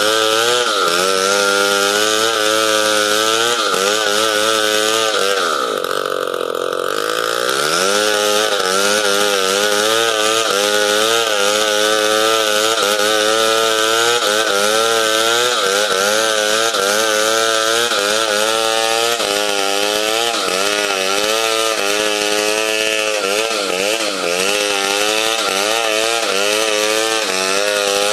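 Two-stroke chainsaw running under load as it rips lengthwise along a log, its pitch wavering as the cut goes on. About six seconds in, the engine pitch drops sharply and then climbs back up.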